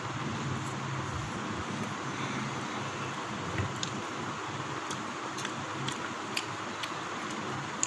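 Steady background noise like a running fan, with a scattering of faint short clicks and taps from about halfway through.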